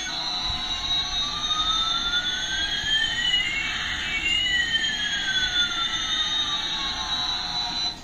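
Electronic jet-engine sound effect from a battery-powered Airbus A380 toy plane: a rushing hiss with one whine rising in pitch and another falling, crossing about halfway. It stops abruptly at the end.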